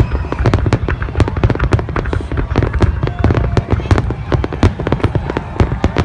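Fireworks exploding in a rapid, continuous barrage of bangs, many a second, with no let-up.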